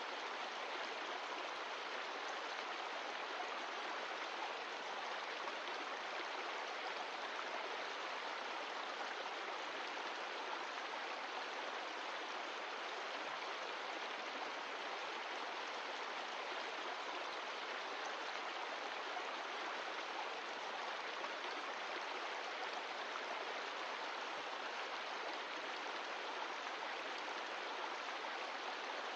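Mountain stream of glacial meltwater rushing steadily over rocks, an even splashing hiss with no changes.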